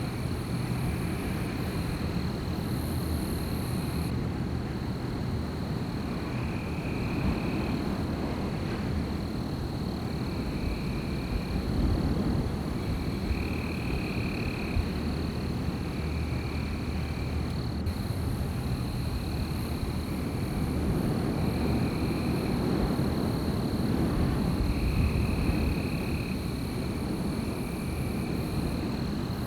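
Wind blowing in a night forest, a low rumble that swells and eases. Over it run a steady thin high drone and short repeated calls every second or two, like the night chorus of insects and frogs.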